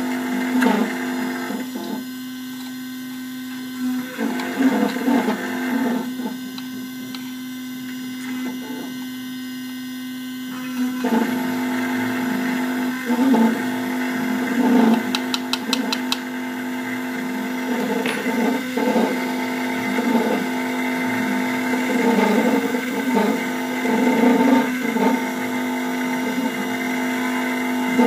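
A jeweller's CNC engraving machine runs its spindle at a steady pitch while its pointed cutter cuts into a flat metal plate. The cutting noise grows louder and quieter in turns as the tool moves.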